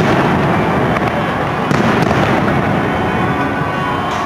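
Aerial fireworks shells bursting: sharp bangs about two seconds apart over a continuous wash of noise.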